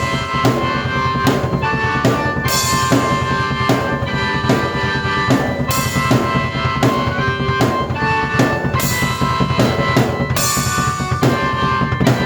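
Drum kit played in a steady beat, with bass drum, snare and cymbal hits, together with keyboard chords held under it.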